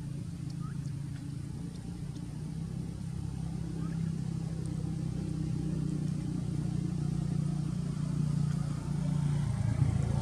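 A motor vehicle's engine running steadily as a low hum, growing louder toward the end.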